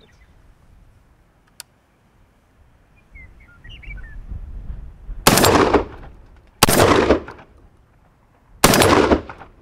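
Three 12-gauge blasts from a GForce GF12AR semi-automatic AR-style shotgun firing 2¾-inch buckshot. The first two come about a second and a half apart, and the third follows two seconds later.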